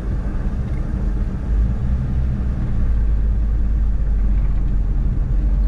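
1953 Chevrolet panel truck's inline six-cylinder engine running with a steady, deep rumble, heard inside the cab as the truck rolls away with no throttle, pulled along by an idle set a bit high. The engine grows a little louder about a second and a half in.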